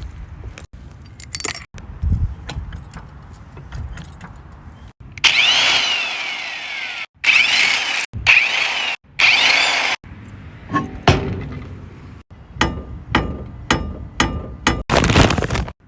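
Clunking and squeaking from an NA Mazda Miata's suspension as it is worked, the sign of lower ball joints that are completely worn out. Scattered sharp knocks give way to a loud stretch of squealing creaks in the middle, broken by cuts, then a run of knocks about two or three a second near the end.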